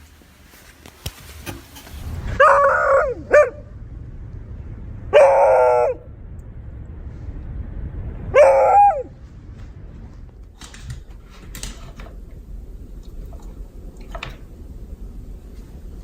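Beagle barking: three loud, drawn-out barks a few seconds apart, the first with a short extra yelp.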